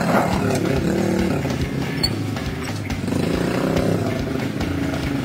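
Small mini motorbike's engine running and revving, its pitch rising and falling with the throttle and climbing about three seconds in.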